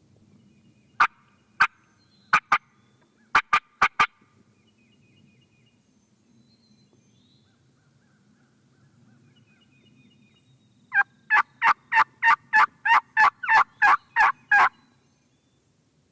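Hen turkey yelps made on a hunter's turkey call, loud and close: a few scattered sharp notes at first, then near the end a fast, even run of about fourteen yelps lasting nearly four seconds, the hunter calling to a distant gobbler.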